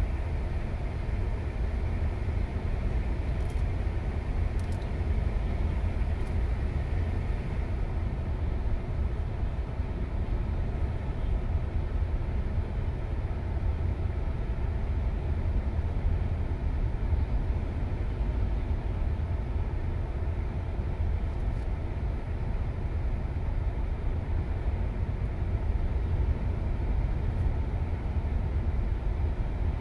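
Steady low rumble of a moving car alongside a freight train of covered hopper cars: the car's road noise mixed with the train's rolling cars.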